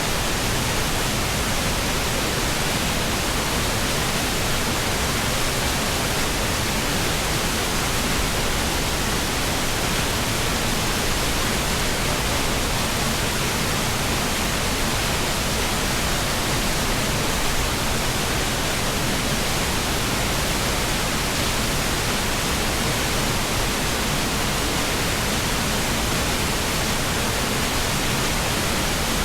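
Mountain river rushing over rocks: a loud, steady roar of water with no breaks.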